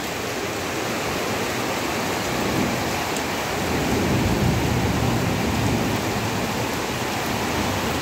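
Heavy monsoon rain pouring onto a street and puddles, a steady hiss, with a low rumble that swells and fades around the middle.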